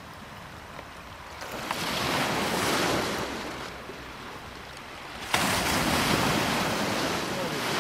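Sea surf washing onto the beach: one wave swells up and dies back about two seconds in, and a second breaks suddenly about five seconds in and keeps rushing.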